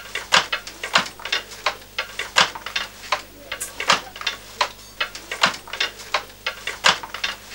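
Wooden handloom being worked, clacking in a steady, slightly uneven rhythm: a loud knock about every 0.7 seconds with lighter clicks in between.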